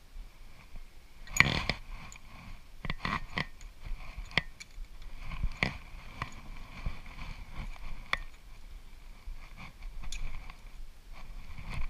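Scattered metallic clicks, clinks and knocks of a spanner and hands on a metal lathe's compound slide and quick-change tool post as the slide is loosened and swung round to 45 degrees. A faint steady high tone runs underneath.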